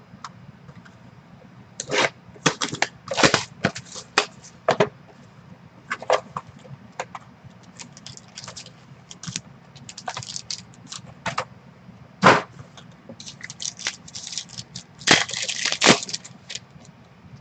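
Foil trading-card pack wrapper being torn open and crinkled by hand: irregular sharp crackles and rustles, with one loud snap about two-thirds of the way through and a dense burst of crinkling near the end.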